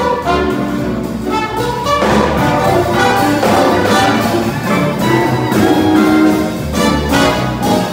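Jazz big band playing, with the trumpets and trombones carrying sustained chords over the rhythm section.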